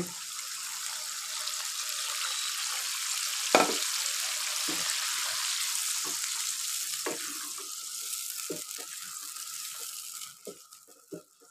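Yogurt hitting hot ghee and mutton in a frying pan, sizzling steadily and then slowly dying down. A wooden spatula knocks and scrapes against the pan as it is stirred, more often in the second half.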